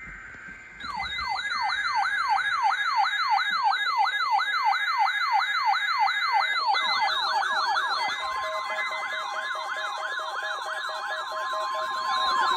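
A siren wailing in fast rising-and-falling sweeps, about three and a half a second. A second overlapping siren pattern and steady tones join about seven seconds in.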